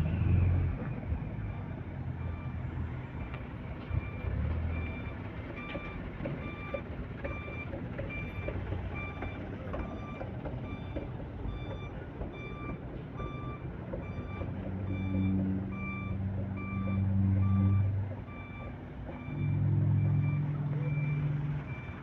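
Reversing alarm on a heavy vehicle beeping at an even pace, a little more than once a second, starting about five seconds in, over a diesel engine running low. The engine swells twice in the second half as the vehicle moves into position.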